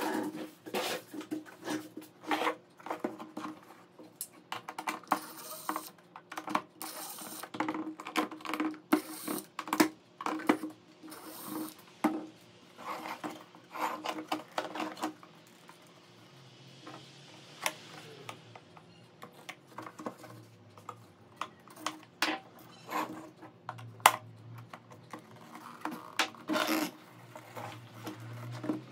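Hard plastic parts of a Toyota Land Cruiser GXR instrument cluster clicking, tapping and rattling as the housing is handled and its lens and bezel are worked loose. The clicks come irregularly, many a second at busy moments.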